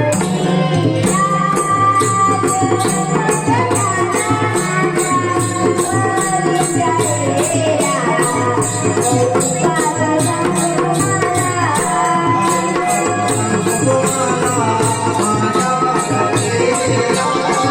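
Naman folk music played on instruments alone: a dholki drum and zanj hand cymbals keep a steady beat under a wavering melody.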